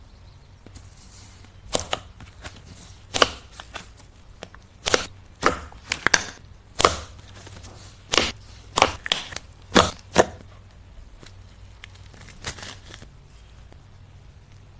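Slime or clay worked by hand, giving a string of sharp, irregular pops and crackles, about a dozen, bunched in the middle.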